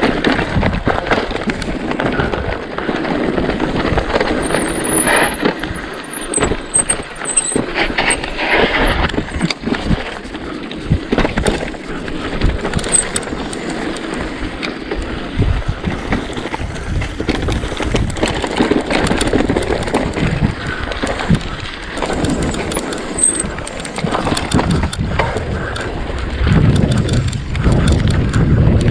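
Mountain bike descending rough moorland single-track at speed: tyres rumbling over stones, with a constant rattle and clatter of chain and frame over the bumps.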